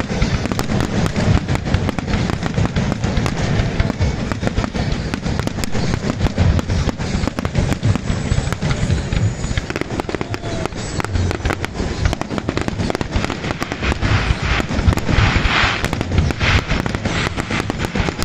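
Fireworks display: a dense run of rapid bangs and booms over a continuous low rumble, with bursts of crackling fizz in the last few seconds.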